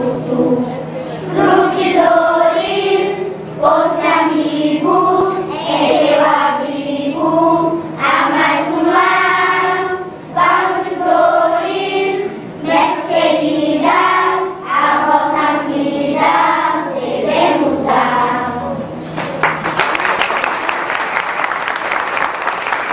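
A group of voices singing a song together like a choir. A few seconds before the end the singing stops and clapping breaks out.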